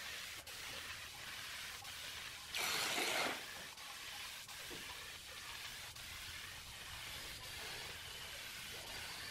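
Compressed-air spray gun spraying a finish onto bare pallet wood: a low steady hiss, with one louder, short burst of spray about two and a half seconds in.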